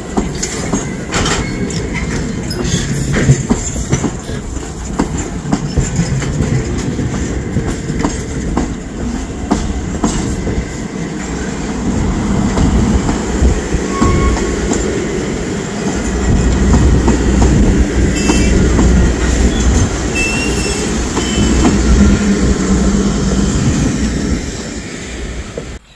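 Strasburg Rail Road passenger coaches rolling past close by: a steady rumble with wheels clacking over the rail joints, the clacks thickest in the first half and the rumble heaviest in the second, with a couple of brief wheel squeals.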